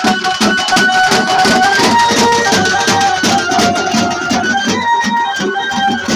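Folk drum band (dappulu) playing: large double-headed drums beaten with sticks in a fast, dense rhythm, with a melody of held notes over the drumming.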